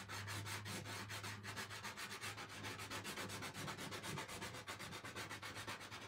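Blue chalk scribbled rapidly back and forth on a chalkboard to fill in a shape: a steady run of quick rubbing strokes, about eight a second.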